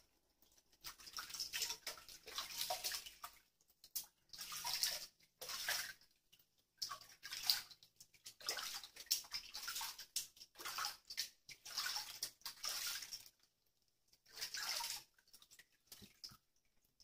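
Water splashing and sloshing in a washbasin as a kitten is scrubbed by hand in shallow water, coming in short bursts about a second long with brief pauses between.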